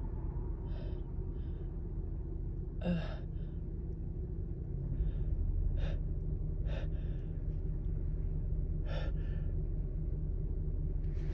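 A woman's short, sharp breaths drawn in through the nose and mouth, several of them a second or more apart, as an allergy tickle builds toward a sneeze. A steady low hum runs underneath.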